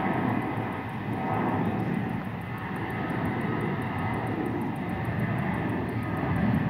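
Distant jet airliner on its take-off run: a steady, noisy rumble of the engines at take-off power, swelling and easing slightly.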